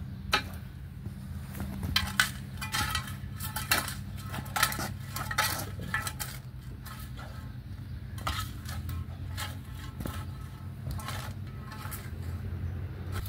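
Metal blade of a hand scraper repeatedly scraping decomposed mulch and soil off a concrete sidewalk edge, gritty scrapes with scattered clinks, one or two strokes a second.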